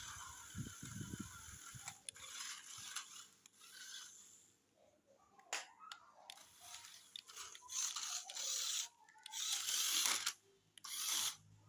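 Toy remote-control off-road car's small electric motor and plastic gearbox whirring in short bursts, starting and stopping several times as the car is driven.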